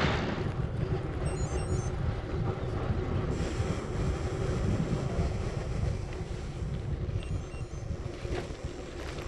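Wind noise on the microphone of a camera moving along with a bicycle, over a low rumble of tyres rolling on tarmac.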